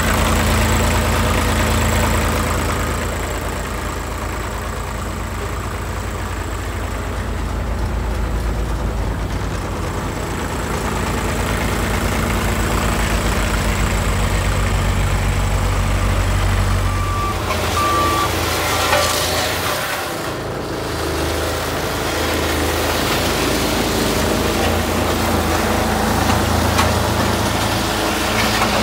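Diesel engine of a Cat CB24B tandem roller idling steadily, its sound shifting and briefly dipping about two-thirds of the way through.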